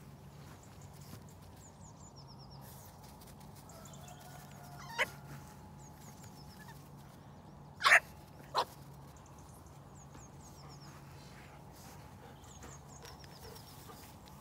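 A puppy giving three short, sharp play barks at a sheep: one about five seconds in, then two close together about three seconds later, the first of that pair the loudest.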